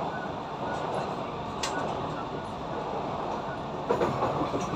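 Kawasaki Sifang C151A metro train heard from inside the car as it runs out of a station: a steady rumble of wheels and running gear. There is one sharp click about a second and a half in, and the noise grows louder near the end.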